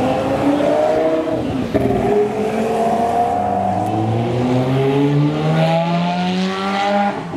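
Italian sports car accelerating hard past, its engine note rising steadily. A short break about two seconds in and another near the end mark gear changes.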